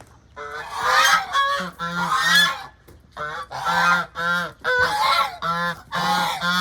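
Domestic geese honking loudly, call after call in quick succession, starting about half a second in.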